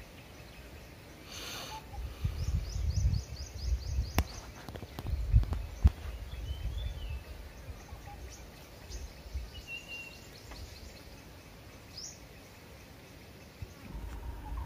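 Outdoor ambience: low rumbling that comes and goes in gusts, with a few sharp clicks, and small birds chirping, with a quick run of repeated chirps about two and a half seconds in and a few single calls later.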